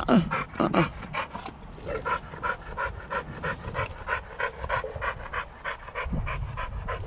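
Dog panting hard and fast after running, about three to four breaths a second.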